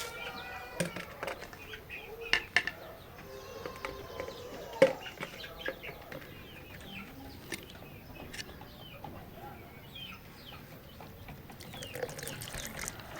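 Chickens clucking and calling, with many short high chirps throughout and scattered sharp knocks, the loudest about five seconds in.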